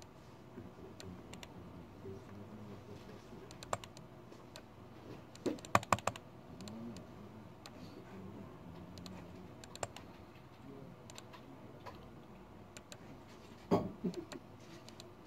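Typing on a computer keyboard: scattered keystrokes, with louder quick runs of keys about six seconds in and again near the end.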